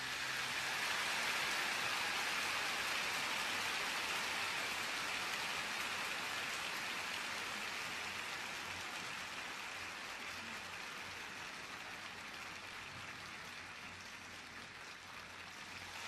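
Large arena crowd applauding, a dense even clapping that builds over the first second or two and then slowly dies away.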